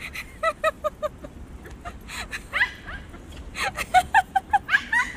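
Small dog yapping: a quick run of about five short yaps, a longer rising-and-falling yelp in the middle, then another rapid run of yaps near the end.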